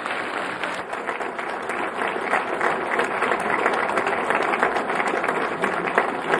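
A large audience applauding: a dense, steady patter of many hands clapping.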